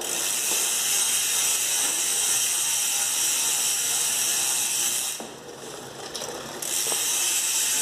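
Mountain bike rear hub freewheeling as the wheel spins: a fast, continuous buzz of ratchet pawl clicks. It drops away about five seconds in and starts again a second and a half later.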